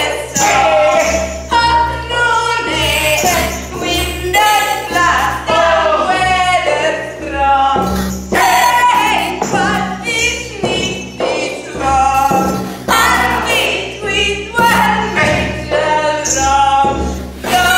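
Music with singing voices in short phrases over a steady low drone.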